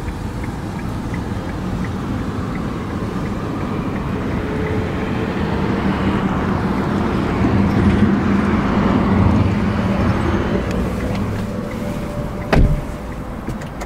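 2017 Kia Rio's engine running steadily. A louder rushing swell of car noise rises and falls through the middle, and a single sharp knock comes near the end.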